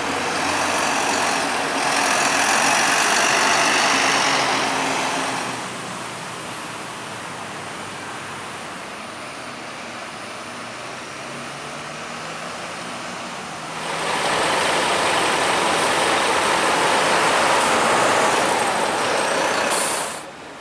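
Diesel city buses running and pulling away, the engine noise loud at first, settling to a quieter steady running, then rising loud again about 14 s in as a Scania K230UB single-decker accelerates through a turn past the microphone. The sound drops off suddenly just before the end.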